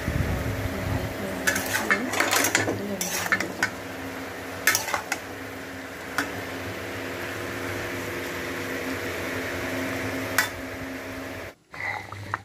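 Metal spatula scraping and clattering against a metal kadai as shrimp are stirred while frying. The strokes are bunched in the first few seconds and a few single ones come later, all over a steady hum.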